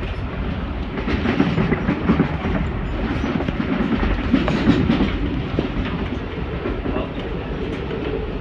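Amtrak Acela train running on the rails: a steady low rumble with wheels clattering over the track, louder and busier from about a second in to around the middle.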